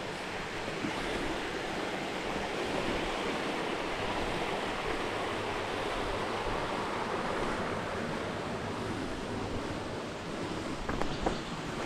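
Steady rushing water of a small waterfall pouring into a jungle pool, with a few light clicks near the end.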